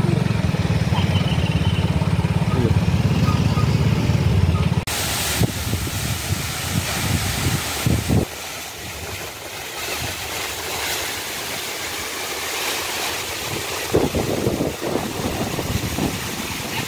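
Motorcycle engine running with a low rapid pulse. About five seconds in, it cuts abruptly to the steady rush of a waterfall.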